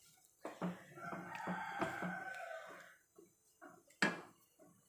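Wooden spatula knocking and scraping against a nonstick pan while thick semolina kesari is stirred, with a sharper knock about four seconds in. Behind it, from about a second in, a long wavering pitched call lasts a second and a half.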